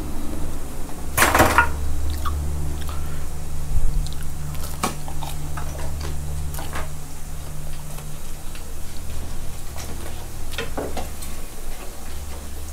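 Battered fish balls on skewers deep-frying in hot oil in a pan: scattered crackling and popping, with a louder crackle about a second in, over a steady low hum.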